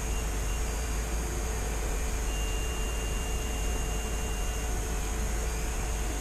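Steady background hum and hiss, unchanging throughout, with a faint thin high tone for a couple of seconds in the middle.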